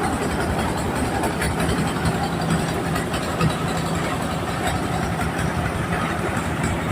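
Mobile corn sheller machine and its engine running steadily, a continuous loud machine drone with a fast, even pulse.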